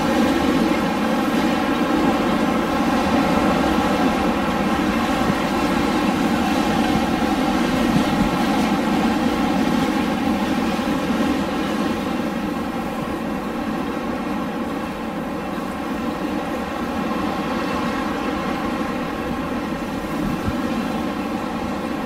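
Winter wind blowing steadily as a continuous rushing roar, easing slightly about halfway through.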